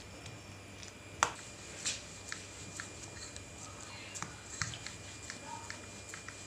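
Quiet handling sounds of dough being pressed flat by hand and then rolled out with a rolling pin on a flour-dusted table: a sharp knock about a second in, a softer one shortly after, then a run of light clicks and taps.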